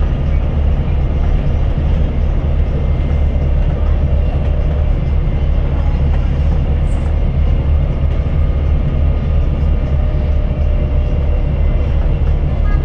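Go-Ahead Ireland single-deck city bus under way, heard from inside the passenger saloon: a steady, loud low rumble of engine and road noise, with a faint steady whine above it.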